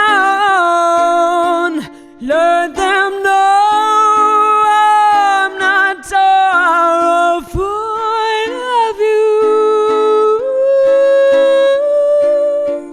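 A woman singing long, held notes with vibrato and no clear words, over a plucked acoustic string instrument keeping a steady pulse. The voice breaks off briefly twice.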